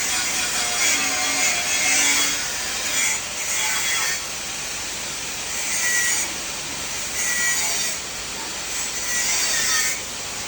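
Rhythmic scraping strokes of a hand tool working metal, a harsh hiss swelling and easing roughly once every one to two seconds.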